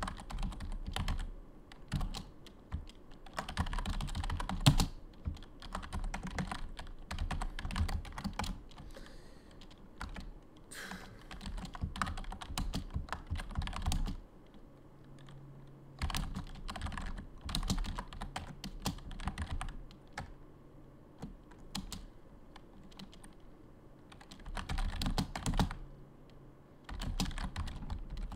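Typing on a computer keyboard: runs of rapid key clicks broken by short pauses, with a longer lull about halfway through.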